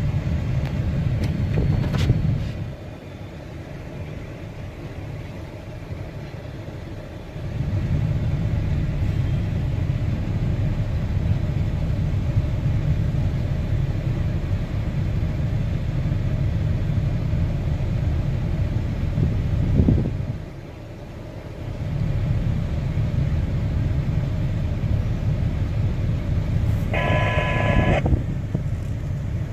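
Low steady rumble of a car idling, heard from inside its cabin, fading out twice for a few seconds. Near the end, a short pitched tone lasting about a second.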